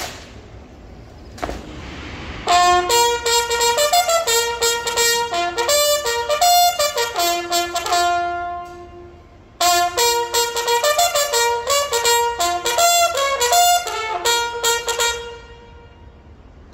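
Bugle call sounded as a salute while an honour guard presents arms, played in two long phrases of held and stepped notes with a gap of about a second between them. A single sharp crack comes right at the start.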